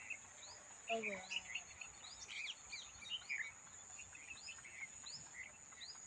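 Wild birds chirping: many short, separate calls and quick sweeps, over a steady high-pitched drone.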